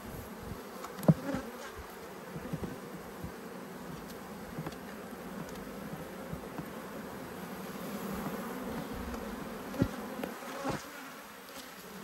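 Honeybees buzzing around an open hive, a steady hum, with a sharp knock about a second in and a few more near the end as the hive tool and wooden frames are worked.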